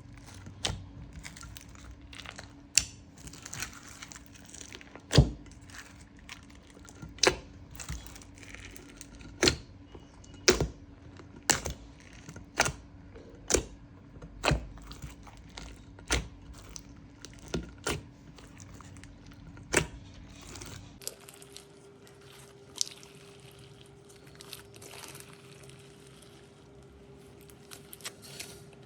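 Orange slime being pressed and worked by hand, with sharp sticky pops and clicks about once a second. In the last several seconds the pops thin out to a softer crackling.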